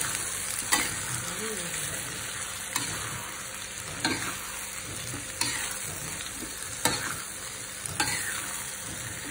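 Chopped tomatoes, green chillies and sliced shallots sizzling as they are stir-fried in a wok, with a spatula scraping and clacking against the pan about six times.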